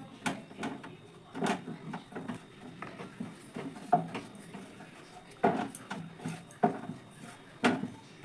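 Rolling pin and rolling board knocking and clattering at irregular intervals, about a knock a second, as a stuffed dough triangle is rolled out lightly.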